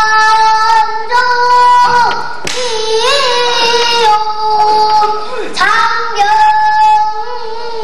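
A young girl singing pansori in full voice, holding long notes of a second or two each that bend in pitch where they end.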